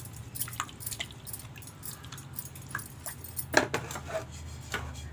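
Fish curry being stirred and swirled in an aluminium pot: scattered light clinks and wet scrapes of metal and thick gravy, the loudest a little past halfway, over a steady low hum.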